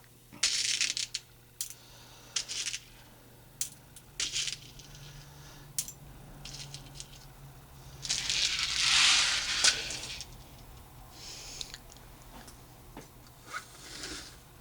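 Lead No. 6 birdshot pellets rattling and clicking as they are handled, in several short rattles and one longer, louder run of pellets about eight seconds in.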